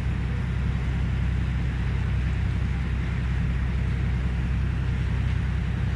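Excursion boat's engine running steadily, a low even drone, with a steady hiss of wind and water over it.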